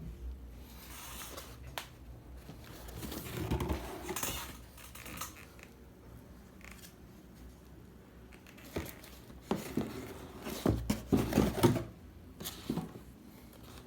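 Unboxing handling noises: packaging rustling and plastic being handled, with scattered clicks and taps. They come in irregular bursts and are loudest in a cluster near the end.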